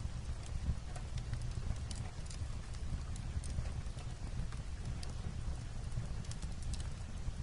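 Fireplace crackling, with scattered sharp pops and snaps, over a steady background of light rain falling on a roof.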